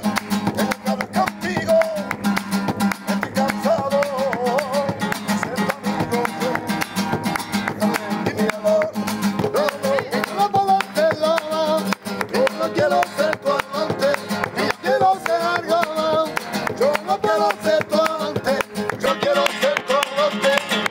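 Live flamenco: an acoustic guitar strummed and plucked, hand-clapping (palmas) keeping the rhythm, and a man's voice singing in long, wavering, ornamented lines.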